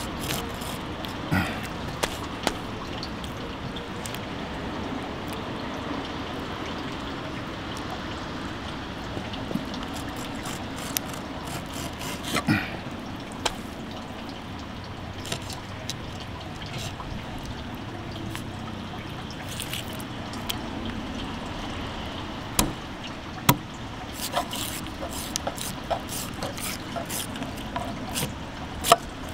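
A kitchen knife splitting a live eel on a plastic cutting board, with scattered sharp clicks and taps of the blade on the board that come thicker near the end as the backbone is cut away. Underneath runs a steady trickle of water.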